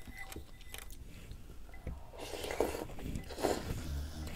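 Wooden chopsticks clicking against a bowl, then slurping of dumpling rice cake soup broth about two seconds in.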